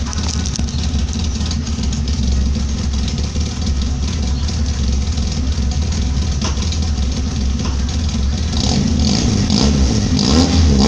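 Volkswagen Voyage's AP 1.6 four-cylinder engine running with a loud, deep exhaust rumble, steady for most of the time and getting busier and a little louder near the end as if revved.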